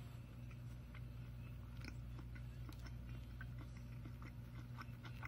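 A person chewing a mouthful of veggie burger, with small irregular crunchy clicks, over a steady low hum.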